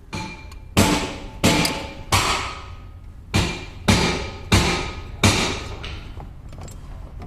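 A hammer striking metal about eight times at uneven intervals, each blow ringing briefly.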